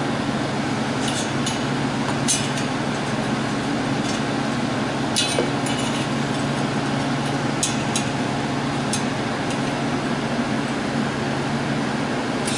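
Light clinks of thin steel sculpture parts and a TIG torch being handled and fitted together, scattered irregularly over a steady machine hum.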